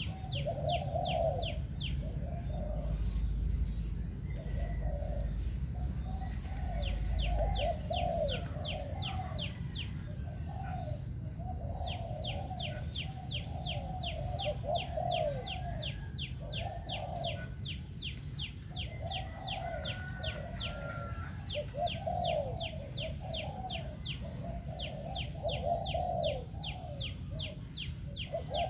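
Spotted dove cooing in repeated low phrases. Higher up, a fast, even pulsing chirr of about five pulses a second comes and goes.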